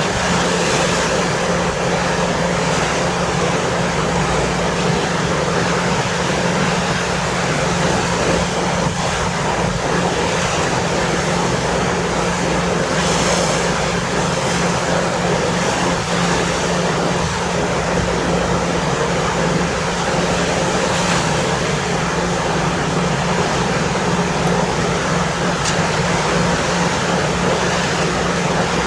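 Steady drone of a ferry's engines with a constant low hum, under the even rush of wind and sea passing the ship.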